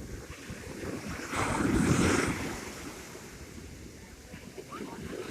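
Sea surf: a big wave breaks on the shore a little over a second in, swells to a loud rush and then fades as it washes back. Wind buffets the microphone throughout.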